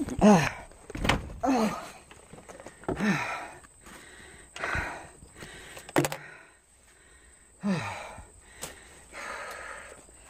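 A woman's voice making about six short sounds without clear words, each falling in pitch, with a sharp knock about six seconds in.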